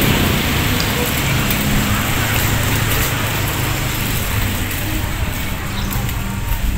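Loaded two-wheeled hand truck rolling over brick paving, its small wheels making a steady rumble.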